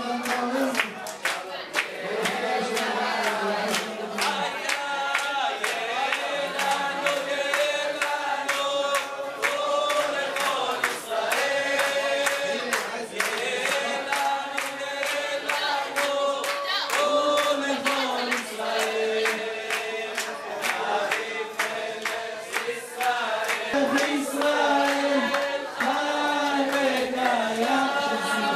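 A congregation singing a festive song together in unison while clapping in time.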